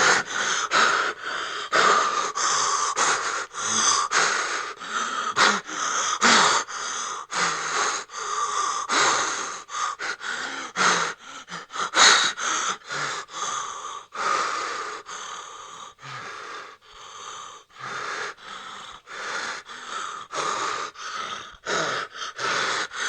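A person breathing in quick, ragged, frightened gasps with a wheezing, asthmatic quality, several breaths a second, in and out.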